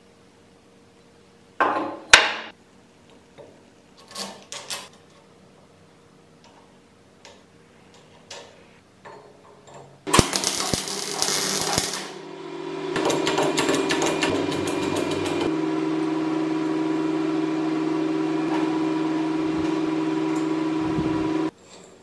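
A few clanks of steel parts being handled, then MIG welding from about ten seconds in: a crackling arc followed by a steady buzzing hum that cuts off suddenly near the end.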